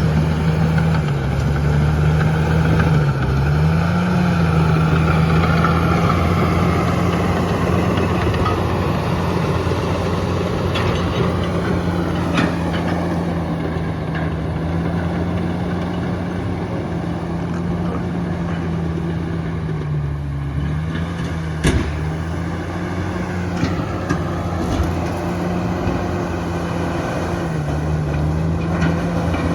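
Komatsu D68ESS bulldozer's diesel engine running steadily, its pitch dipping briefly a few times as it takes load, with a few sharp knocks about 12 and 22 seconds in.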